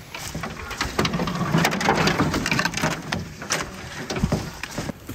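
Footsteps crunching through dry fallen leaves, with close rustling of a jacket and gear, busiest and loudest in the middle few seconds.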